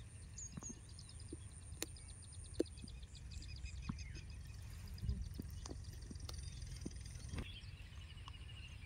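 Quiet riverside ambience: faint high-pitched chirping trills, with a few soft scattered clicks over a low rumble.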